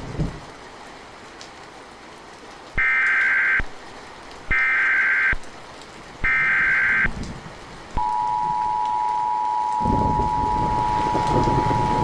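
Emergency Alert System SAME header: three identical bursts of warbling data tones, each under a second long, about a second and a half apart. These are followed about eight seconds in by the steady two-tone EAS attention signal, which holds. A low rumbling noise, like rain, comes in under the tone near the end.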